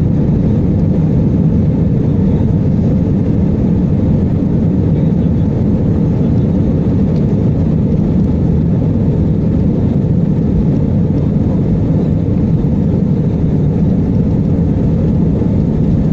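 Steady low rumble of an Airbus A320-family airliner's jet engines and airframe, heard inside the cabin while the plane rolls slowly on the ground; the level stays even with no rise in pitch.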